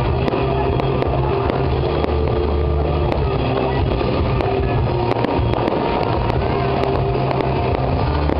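Fireworks display going off: a continuous rushing roar of fountains and rockets, with many quick crackling pops all through.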